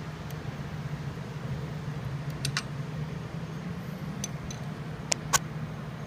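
A few sharp metallic clicks from a wrench and hardware on a coilover camber plate: one about two and a half seconds in, then two close together just after five seconds. A steady low hum runs under them.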